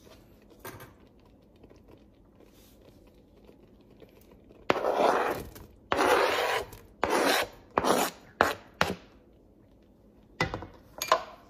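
Metal spoon scraping baked potato across a cutting board, in about six rasping strokes, the first two the longest, followed by a couple of short knocks near the end.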